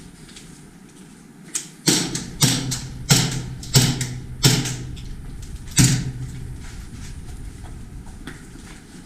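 Airsoft gun fired in single shots, about seven sharp cracks under a second apart, in an irregular rhythm, with a short reverberant tail after each.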